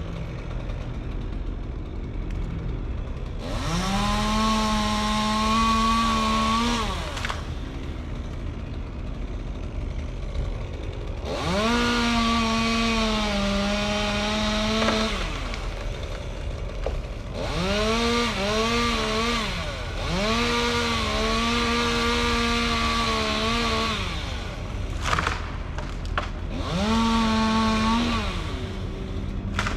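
Two-stroke chainsaw revving to full speed in five bursts of a few seconds each, dropping back to a low idle between them, as when cutting into a big fir. A short sharp sound comes between the last two bursts.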